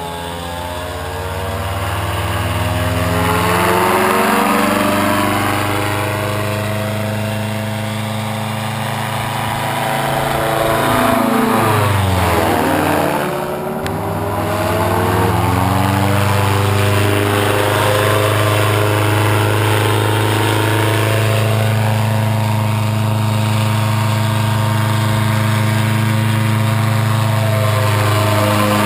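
Paramotor's two-stroke engine and propeller running at steady power as it flies low passes. The pitch drops as it goes by, most sharply about halfway through, where it passes close overhead, and again near the end.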